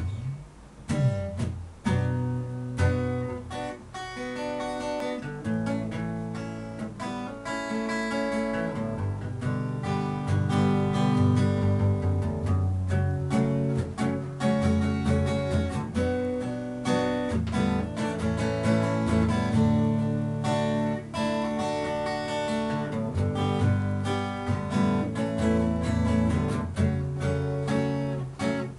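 Acoustic guitar played by hand, strumming and picking chords with a melody on top, fuller from about a second in.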